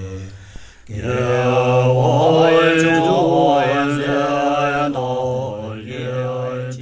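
Tibetan Buddhist monks chanting a mantra in low, steady voices, with a short break for breath just under a second in. The chant starts to fade out near the end.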